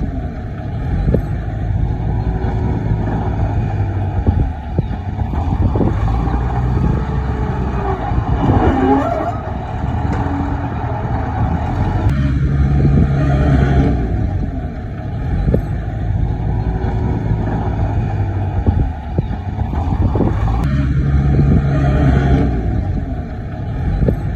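Excavator's diesel engine running, its sound swelling and easing every eight seconds or so, with occasional sharp knocks.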